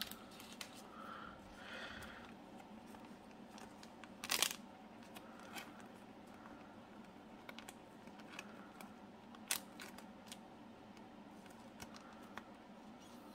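Thin plastic card sleeve crinkling and rustling faintly as a trading card is slid into it and handled, with a louder crinkle about four seconds in and a sharp tick near ten seconds.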